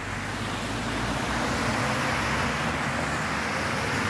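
A car driving through a flooded street, its tyres throwing up a steady hiss of spray.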